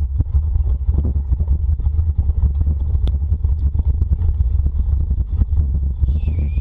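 Dog-drawn dryland rig running fast over a rough forest trail: a steady low wind rumble on the microphone with the rig rattling and knocking over the bumps. A brief high-pitched squeal comes near the end.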